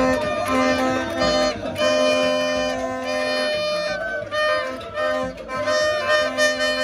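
Music of long held horn notes that change pitch every second or so.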